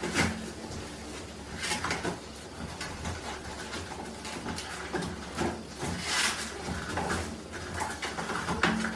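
Toilet paper rustling and tearing in short bursts as a small dog pulls it off the roll, over a steady low hum.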